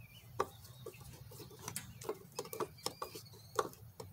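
Scattered light clicks and taps, about half a dozen at uneven intervals, from hands handling small plastic and metal parts on a riding mower's engine shroud, over a faint steady low hum.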